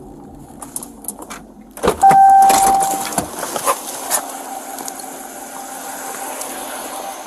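A patrol car door unlatching and opening as the driver climbs out, with sharp clicks, rustling and jingling of gear. About two seconds in the sound jumps up and a steady tone sounds for about a second, then a steady hiss and hum of the roadside carries on.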